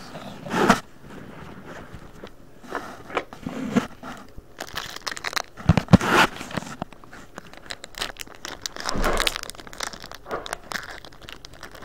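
Foil Pokémon booster pack wrapper being torn open and crumpled by hand: irregular crinkling and tearing in uneven bursts, loudest about six and nine seconds in.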